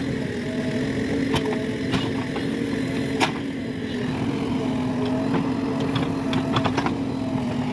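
JCB 3DX backhoe loader's diesel engine running steadily under load while the backhoe bucket digs into soil. Scattered sharp knocks and clicks sound over it, a quick cluster of them near the end.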